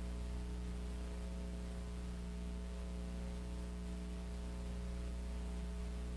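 Steady electrical mains hum with a faint hiss, unchanging throughout; no crowd noise or voices.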